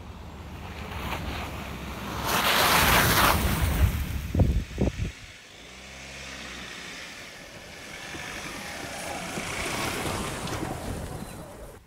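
Ford Ranger Raptor pickup driving past on a dirt track: engine and tyre noise swells as it nears, peaking about three seconds in with low wind thumps on the microphone. It swells again near the end as the truck comes close.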